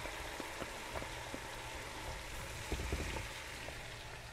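Butter sizzling in a skillet around freshly added chopped green onions: a steady crackle with scattered small pops. A brief low bump about three seconds in.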